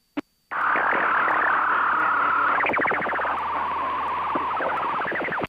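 A garbled aviation radio transmission in the headset audio: a click, then about five seconds of distorted, unreadable voice and hiss, which cuts off abruptly.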